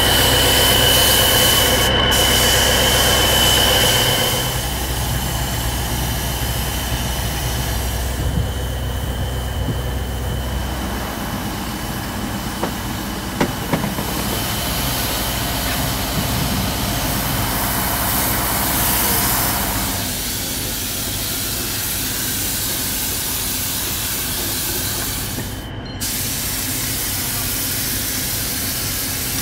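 Hiss of a compressed-air paint spray gun over a steady low mechanical hum, changing abruptly a few times.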